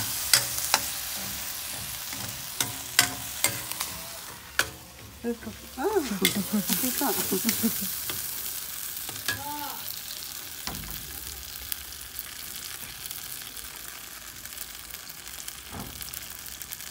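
Ground meat and tomato sauce sizzling in a stainless steel wok while a metal spoon stirs and scrapes it. Sharp clinks of the spoon on the pan come through the first few seconds, and a short wavering squeak sounds about six seconds in.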